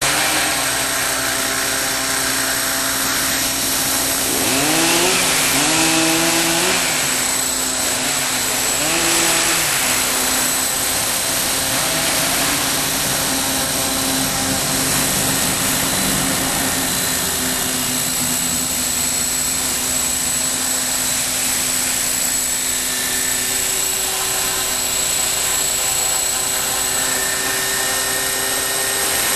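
Radio-controlled model helicopter flying, its motor and rotor making a steady whine. The pitch dips and swings back up a few times, about five and nine seconds in, as the rotor speed changes.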